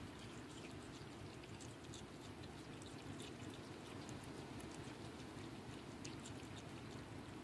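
Baby opossums eating from a bowl of wet diced fruit: faint, steady wet smacking and many small clicks of chewing.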